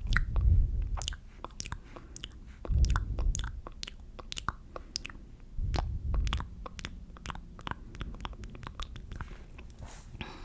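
Close-microphone ASMR hand sounds: hands rubbing and brushing against the microphone in low swells about every three seconds, over a steady run of small sharp clicks.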